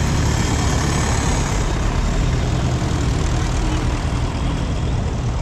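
Engines of vintage tractors running steadily as the tractors drive past one after another, a continuous low engine note.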